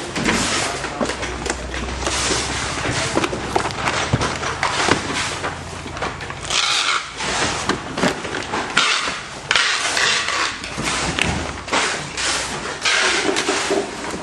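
Dense, irregular clattering and knocking, many quick impacts in a row over a steady noisy background.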